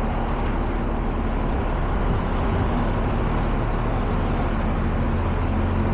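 Street traffic: motor vehicle engines running with a steady low rumble over road noise.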